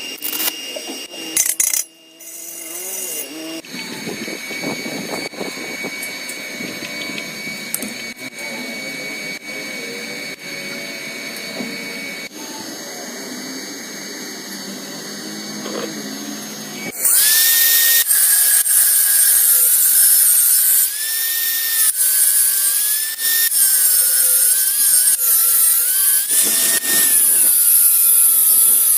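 Power tool running in a metalworking shop, its whine rising and falling as it is loaded, with a hissing grinding noise. It gets much louder a little past halfway through.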